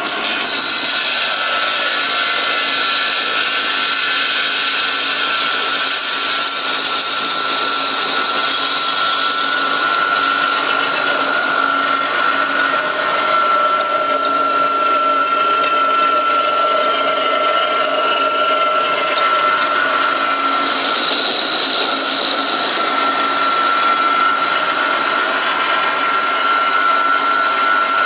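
Stainless colloid mill running under load, grinding nuts into butter: a steady motor sound with a high whine held throughout. A hiss over it fades about ten seconds in.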